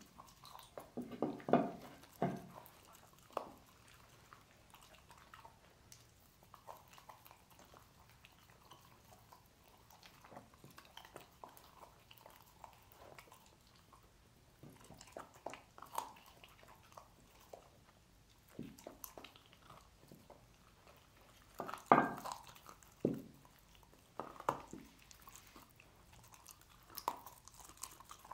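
A dog chewing and gnawing cooked pork trotter bones, with irregular crunches and bites. Clusters of louder crunches come near the start and again about three-quarters through, with quieter gnawing between.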